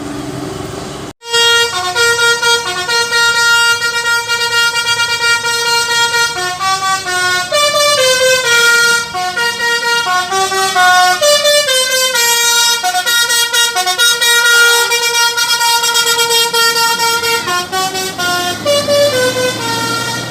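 Telolet basuri multi-tone bus air horn playing a tune: loud, steady horn notes that step up and down in pitch, sometimes two at once. It cuts in suddenly about a second in.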